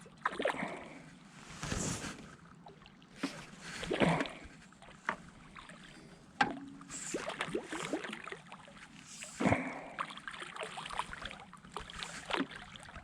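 Water splashing and lapping in irregular bursts a second or two apart.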